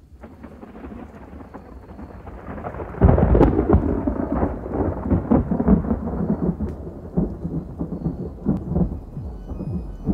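Thunder sound effect: a rumble that swells for about three seconds, turns suddenly much louder, then keeps rumbling with scattered crackles.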